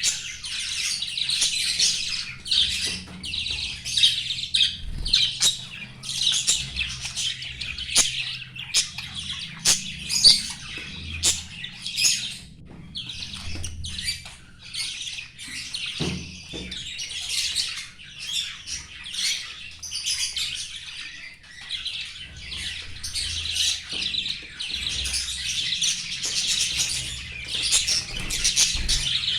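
Many small cage birds chirping and squawking at once in a dense, continuous chatter, with a few sharp clicks.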